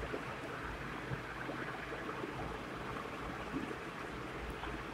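Quiet steady hiss of room and microphone noise, with faint scratching of a marker writing on a whiteboard.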